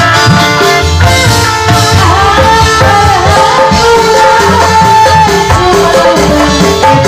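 A woman singing an Indramayu reog folk song through a microphone over loud live band music. Her line comes in about a second in and winds up and down in pitch.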